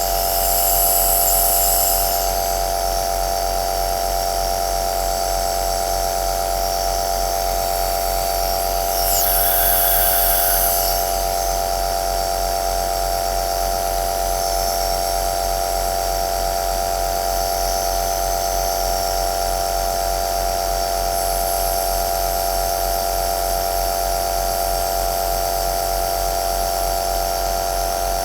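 Compressor nebulizer running steadily: an even motor hum with a hiss of air and mist, the hiss briefly rising twice, about a second in and again about nine seconds in.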